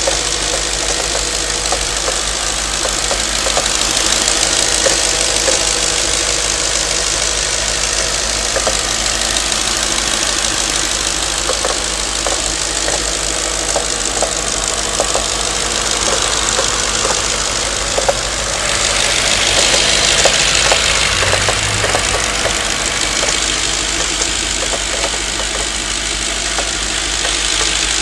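A warmed-up vehicle engine running steadily with irregular knocks and ticks over the running, a knocking that appears once the engine is warm and whose cause the owner doesn't know. A louder hiss joins for a few seconds about two-thirds of the way through.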